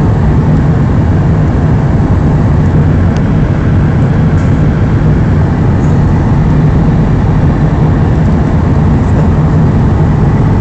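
Steady cabin noise of a jet airliner in flight: a loud, even drone of engines and rushing air, heaviest in the deep range.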